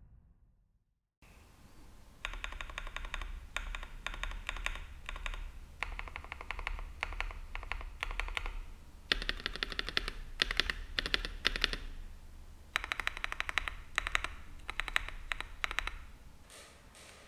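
Typing on an Akko PC75b mechanical keyboard with lubed Akko CS Jelly Black linear switches and tuned stabilizers: rapid runs of key clacks in bursts of a second or two with short pauses. The typing starts after about a second of silence and thins to a few single strokes near the end.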